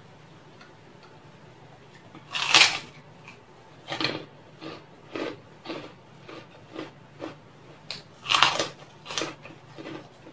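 Puffy kerupuk cracker bitten with a loud crisp crunch, twice, about two and a half seconds in and again past eight seconds. Each bite is followed by a run of crunchy chewing, about two chews a second.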